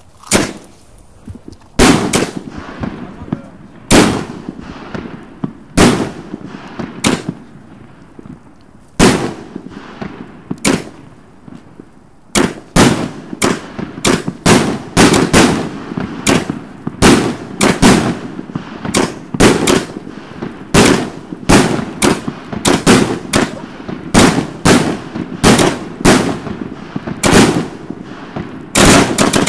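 Fireworks going off in a series of sharp, loud bangs. They come about one every one to two seconds at first, then quicken to about two a second through the second half.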